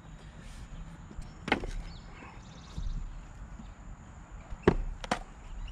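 Pieces of maple firewood knocking against each other and the chopping block as split wood is moved and a new round is set up for splitting: a few sharp wooden knocks, the loudest a pair about five seconds in.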